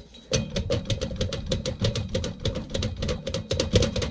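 Rapid, even clicking and rattling, about eight or nine knocks a second, from a Rheem air handler's blower motor. Its bearings have way too much play, and that play is the cause of the blower's grinding noise.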